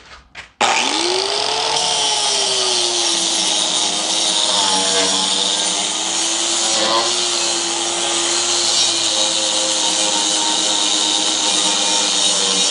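Drill Master angle grinder with a 60-grit flap disc switched on about half a second in. Its whine rises as it spins up, then it grinds a steel plate: a steady whine over a loud hissing rasp that wavers slightly in pitch as the disc is pressed onto the steel.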